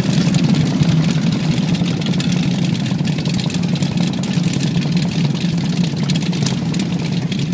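A group of cruiser motorcycles idling together, a steady low rumble of engines.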